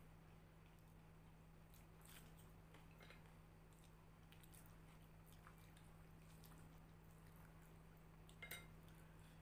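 Near silence with faint, scattered sounds of eating by hand: fingers squishing and mixing rice on glass plates and quiet chewing, over a low steady hum. A slightly sharper click comes near the end.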